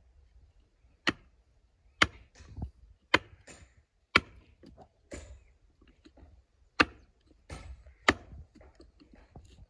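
A series of sharp knocks at an uneven pace, roughly one a second, with a few weaker knocks between them.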